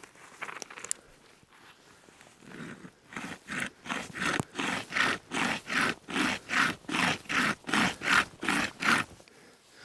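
Pocket chainsaw (a bare chainsaw chain pulled by two hand straps) sawing a branch with quick back-and-forth rasping strokes, about three a second, starting about three seconds in and stopping just after nine seconds. Before that there are only faint clicks and rustling.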